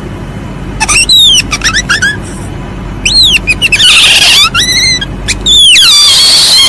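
Civet calls played as a hunting lure: a string of shrill squeals, each rising and then falling in pitch. Quick short squeals come about a second in, followed by a longer arched squeal with a harsh, hissing edge, and a long harsh squeal near the end.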